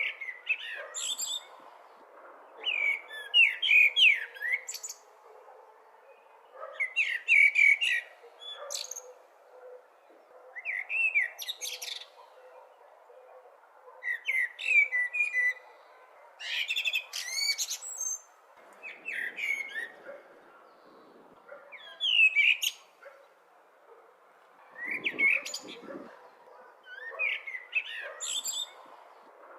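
Blackbird singing: short song phrases repeated every three to four seconds, each a run of warbled notes with a high twitter on top, over a faint steady background hiss.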